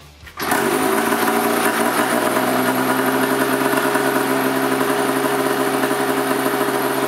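800cc two-stroke snowmobile engine starting about half a second in, then idling steadily.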